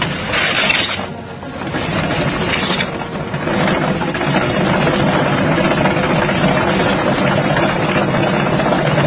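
Heavy excavating machine working the ground: two short bursts of noise in the first three seconds, then a dense, steady noise of the machine running and digging.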